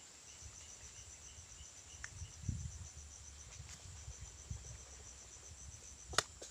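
Insects calling in the grass: a steady high pulsing of about five pulses a second, with a fainter, lower pulsing call in the first two seconds. Low rustling and soft knocks of hands working in grass and soil at the hole, and a sharp click near the end.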